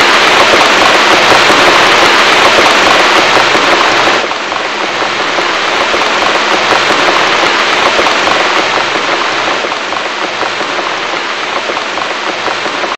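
Loud, steady rushing noise like heavy rain, with no tune or voice. About four seconds in it drops to a softer, duller hiss, then cuts off abruptly.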